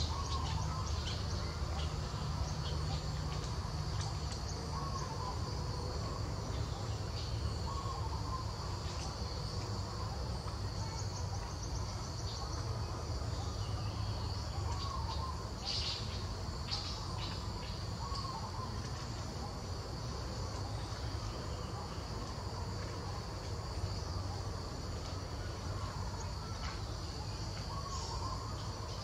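Steady high-pitched drone of insects, over a low steady rumble, with short chirping calls every few seconds.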